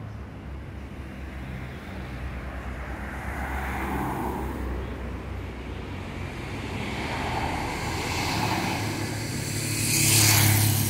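Road traffic: cars passing along the avenue over a steady low hum, with one vehicle passing close and loud near the end.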